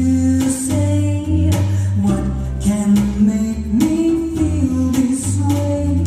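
A live jazz combo is playing an instrumental passage. Electric guitar and electric bass play over drums keeping a steady beat.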